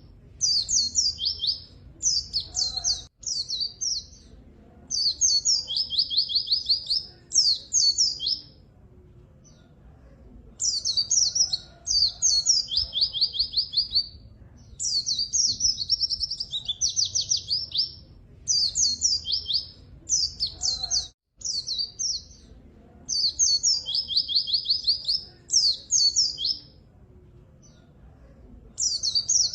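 White-eye (pleci) in full, lively song: bouts of fast, high trilled phrases, each lasting one to several seconds, separated by short pauses. A faint low hum lies underneath.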